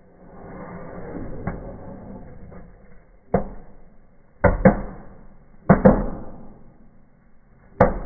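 Small indoor fireworks going off in a fireplace: a fizzing hiss of sparkler-like fountains building in the first few seconds, then sharp firecracker bangs, one about three seconds in, two quick pairs near the middle, and one more near the end.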